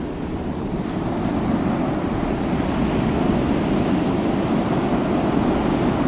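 Ocean waves: a continuous rushing wash of surf, swelling slightly within the first second or two and then holding steady.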